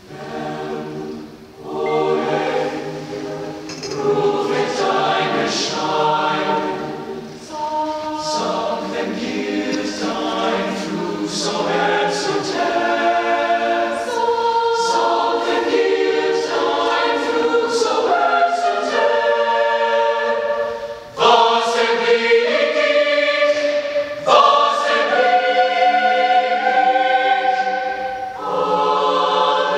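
Mixed-voice high school concert choir singing in multi-part harmony, entering at the very start and going on in phrases with short breaks between them.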